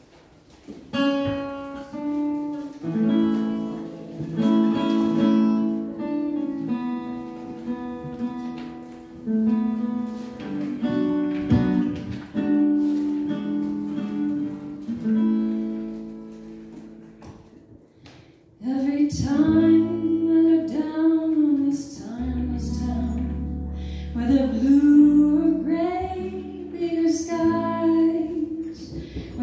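Live jazz: an acoustic guitar plays a solo intro of plucked chords, then a woman's voice comes in singing about two-thirds of the way through, with a double bass joining underneath.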